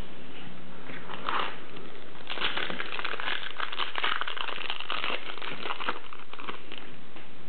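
Foil wrapper of a 1998-99 Flair Showcase basketball card pack crinkling as the pack is opened and the cards are slid out: a short rustle about a second in, then steady crackly crinkling for about four seconds.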